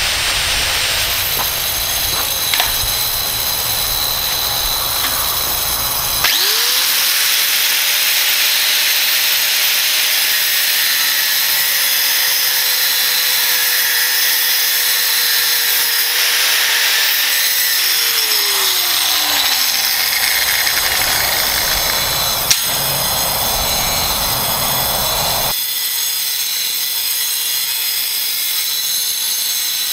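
Angle grinder cutting through steel flat bar with a thin cut-off wheel: a steady motor whine over a hiss from the cut. The whine drops in pitch a little past the middle. The sound changes abruptly about six seconds in and again near the end.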